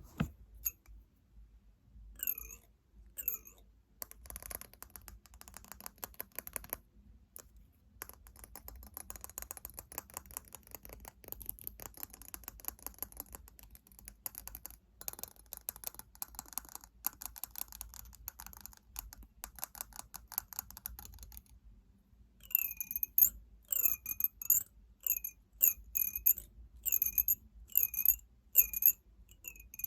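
Fingernails tapping on hard objects: a few single ringing taps, then fast, continuous nail tapping from about four seconds in, then near the end slower, sharper taps about two a second, each ringing with a high pitch.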